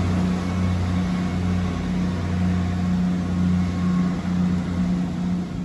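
Class 158 diesel multiple unit pulling away under power, its underfloor diesel engines giving a steady low drone whose pitch holds level.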